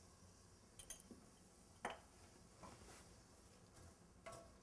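Faint, scattered clicks and taps of a wooden spoon and utensils against a pan as diced onions are salted and stirred, a few light knocks a second or so apart.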